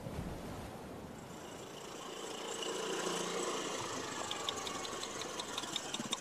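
An engine running steadily, building up over the first few seconds, with faint regular ticking near the end.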